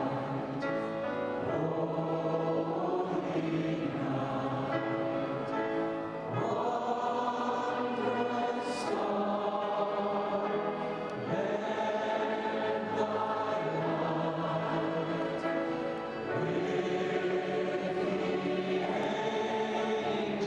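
Church choir singing at a Christmas concert, held notes in long phrases with brief pauses between them.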